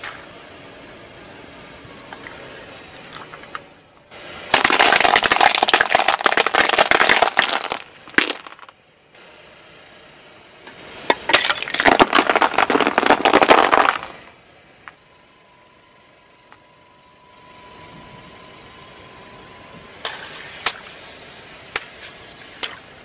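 Car tyre slowly rolling over and crushing small brittle objects: two long spells of loud, dense crackling and crunching, the second as it crushes shell fragments and gel water beads. A faint steady tone follows for several seconds, then a few sharp clicks near the end.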